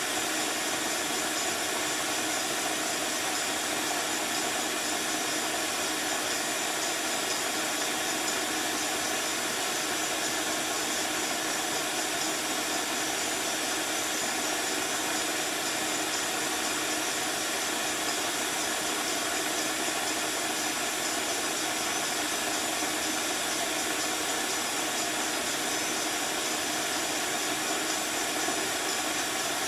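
Bee vacuum running steadily, its hose sucking honeybees off exposed comb in a wall cavity.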